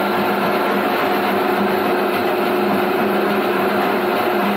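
Motor-driven coffee cherry pulping machine running with a steady hum.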